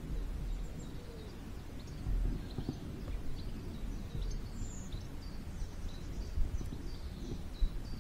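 Small birds chirping in short, scattered calls over a steady low outdoor rumble.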